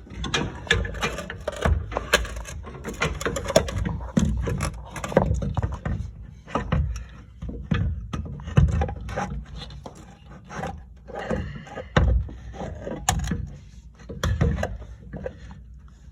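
Irregular clunks, knocks and scrapes as a new rear strut assembly is wrestled up against the car body, its top studs being worked toward the three mounting holes.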